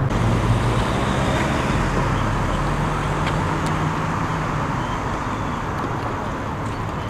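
A motor engine's low hum over a steady wash of traffic-like noise, the hum fading after about four seconds.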